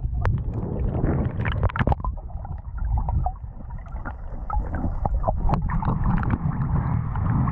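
Muffled underwater rumble and gurgling picked up by an action camera submerged in the sea while a dog paddles past, with scattered small clicks and bubble sounds. From about six seconds in the camera sits at the waterline and the sound opens into sloshing water.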